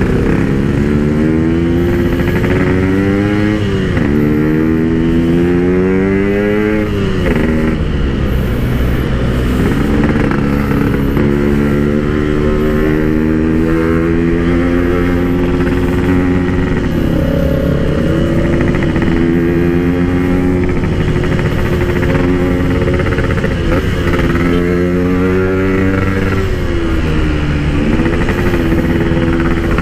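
Yamaha RX-King 135cc two-stroke motorcycle being ridden, its engine pitch climbing and then dropping several times as it shifts gears, with steadier stretches in between. It is heard through a quiet aftermarket exhaust packed with PK 1 silencer packing.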